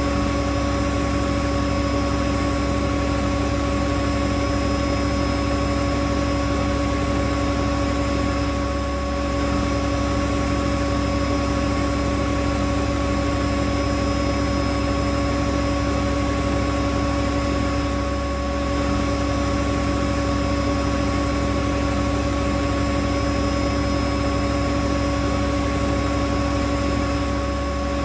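Whirlpool front-loading washing machine on its high-speed spin (1400 rpm): a steady motor whine and drum hum that holds one pitch, dipping slightly in level now and then.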